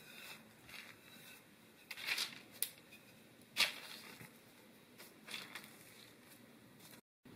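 Parchment paper rustling and crinkling under a wooden rolling pin and hands as flour-dusted dough is rolled out and smoothed. There are several short rustles, the loudest about three and a half seconds in, and one sharp click just before it.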